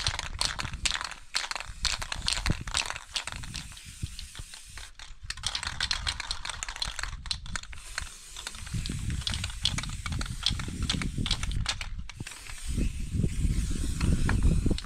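Aerosol spray-paint cans being shaken and sprayed: rapid rattling clicks of the mixing ball inside the can alternate with stretches of spray hiss. A low rumble builds over the last few seconds.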